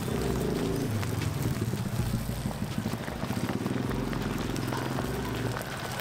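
Batter and egg deep-frying in a wok of hot palm oil, sizzling and crackling steadily, over a low hum of street background.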